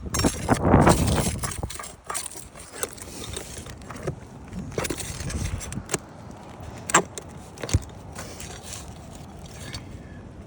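Hand work on an asphalt shingle roof: a scraping, rustling rush for the first two seconds, then scattered clicks and taps, with two sharp knocks about seven seconds in.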